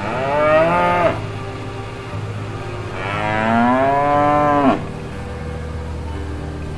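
A cow mooing twice: a short moo, then a longer one about three seconds in, each rising in pitch and dropping off at the end. A steady low background tone runs underneath.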